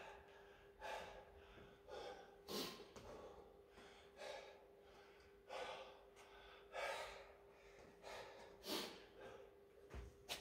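A man breathing hard, winded from a long set of two-pump burpees: heavy, gasping breaths about one a second. Near the end his hands hit the exercise mat with a thud or two.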